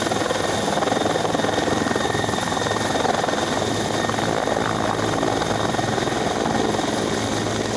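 Helicopter's rotor and engines running steadily as it hovers low and settles down toward the helipad to land.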